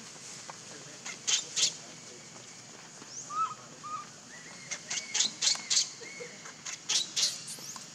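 Baby macaque crying in short, high-pitched squeaks that come in quick runs of two to four.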